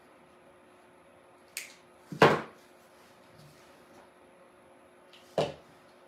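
Cutters working on flower stems: three sharp snaps and clacks, the loudest just over two seconds in, against quiet room tone.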